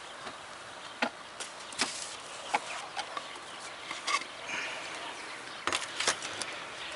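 A handful of irregular sharp clicks and knocks as a ratchet tie-down strap is released and pulled off a beehive's lid, over a steady background hiss.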